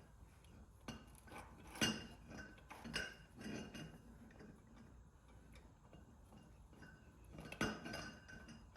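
Hand grease gun being fitted and worked on a tie rod end's grease fitting: a few scattered light metallic clicks and clinks with a short ring, the clearest about two seconds in and near the end. The gun turns out to be empty.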